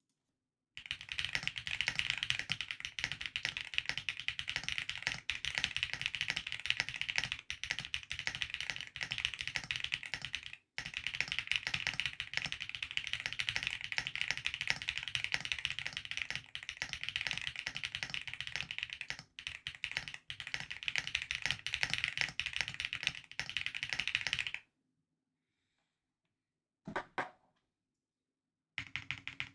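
Fast continuous typing on a QK75N mechanical keyboard with stock Owlab Neon switches, PBT keycaps and a foam-dampened polycarbonate plate. The keystrokes stop about three-quarters of the way through. A short burst of keys follows, then typing resumes near the end.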